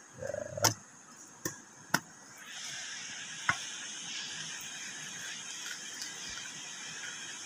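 Knife cutting into a durian's spiky husk and the husk being pried apart by hand: a few sharp clicks and cracks in the first few seconds, then a steady high hiss from about two and a half seconds in.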